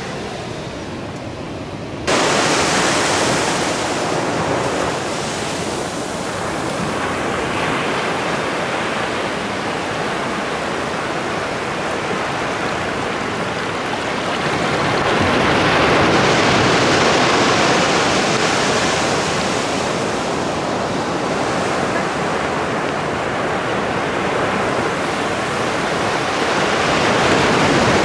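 Ocean surf: waves washing in a steady hiss that slowly swells and eases. It starts suddenly about two seconds in, after a quieter stretch of wind.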